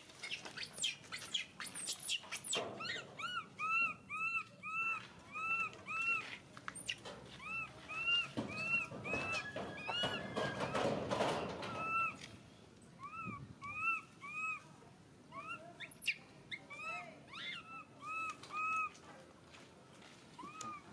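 Infant long-tailed macaque crying: runs of short, arched squeals, two or three a second, broken by brief pauses, with a few sharper high-pitched cries in the first two seconds.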